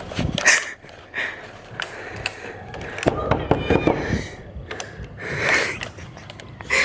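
A string of scattered clicks and knocks, the loudest about half a second in.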